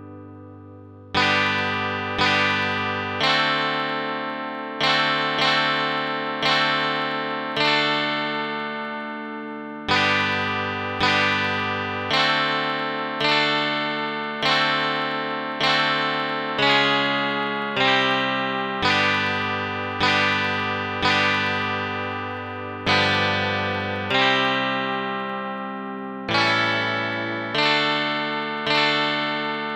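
Chords from the Heavenly Chords phone app, in a plucked-string, guitar-like tone, struck one after another about every one to two seconds, each ringing and fading before the next.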